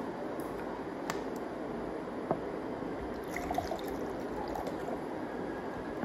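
Water poured from a plastic bottle into a glass pitcher, splashing for a second or so about three seconds in, after two light clicks from handling the bottle. A steady room hiss lies under it.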